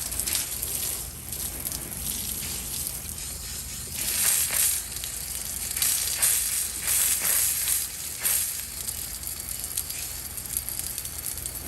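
Water from a garden hose spraying onto the overheated compressor of a heat pump's outdoor unit, a hissing spray that swells several times as the stream is moved. The water is cooling the compressor so that its tripped thermal overload will reset.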